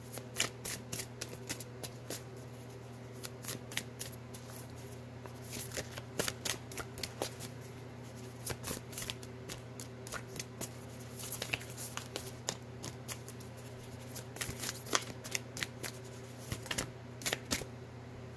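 A deck of oracle cards being shuffled in the hands: irregular runs of quick card snaps and flicks, over a steady low hum.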